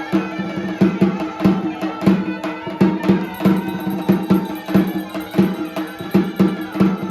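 Traditional folk music: steady held melody notes over drum strokes that come about twice a second.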